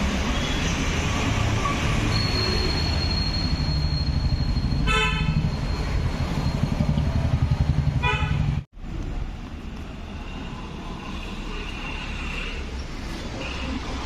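Road traffic with two short car-horn toots, about five and eight seconds in, over a steady rumble and a thin high tone. The sound cuts off abruptly after the second toot and goes on as a quieter steady background.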